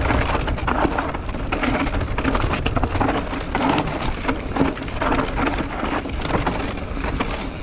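Mountain bike descending a rough dirt singletrack: wind rumbling on the camera microphone, with tyres crunching and rattling over loose dirt and stones.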